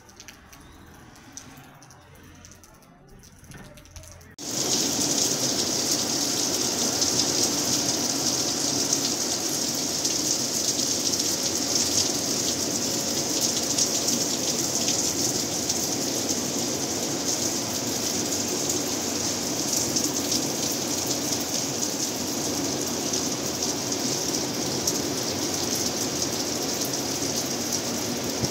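Heavy rain pouring in a storm, a loud steady hiss that starts abruptly about four seconds in, after a few seconds of much quieter sound.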